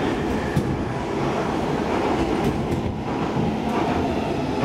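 Stockholm Metro C14 subway car running at speed, heard from inside the car: a steady rumble of wheels on rails, with a few scattered clicks.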